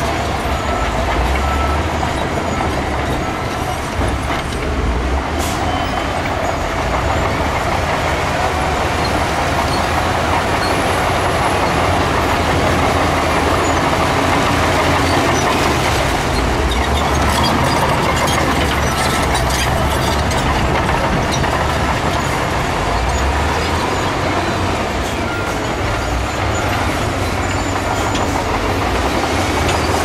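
Heavy diesel earthmoving machinery running steadily: a low engine rumble with a broad mechanical clatter and a few scattered metallic clanks.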